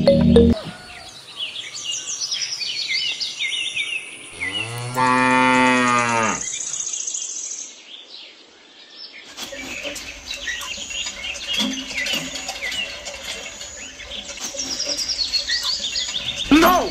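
A cow mooing once, a single long call of about two seconds near the middle, with birds chirping on and off around it.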